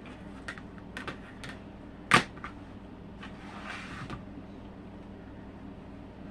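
A few light clicks and one sharp knock about two seconds in, then a brief rustle, as quilting pieces and tools are handled on a work table, over a steady low hum.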